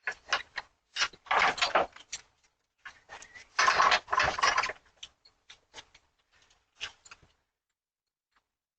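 Irregular rattling and clattering with sharp clicks and two longer noisy bursts, heard through a home security camera's microphone that cuts to dead silence between sounds.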